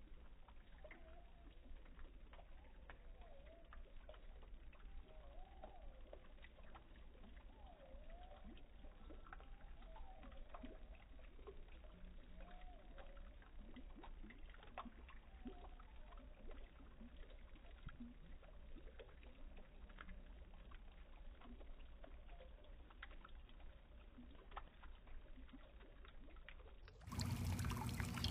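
Faint, slowed-down garden ambience: a low murky rumble with slow, low-pitched warbling glides scattered through the first half. About a second before the end the sound turns suddenly louder and fuller, with a steady low hum.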